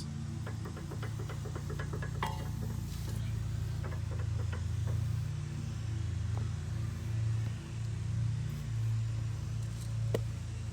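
Worn sway bar end link on a Volvo XC90, loose at its lower joint, clicking and knocking a few times as it is moved, over a steady low hum. The play in the joint is the cause of the suspension clunk on rough roads.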